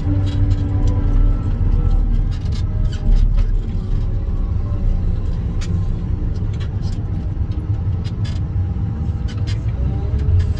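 Wheel loader's diesel engine running, heard inside the cab, with scattered knocks and rattles; near the end a rising whine as the machine works harder.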